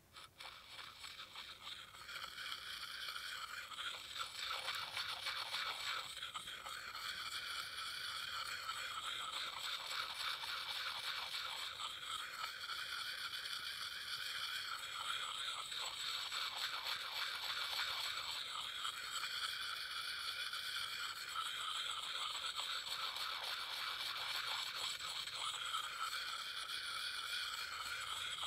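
Round sharpening puck rubbed over the steel bit of an axe, making a steady scraping that starts softly and builds over the first couple of seconds.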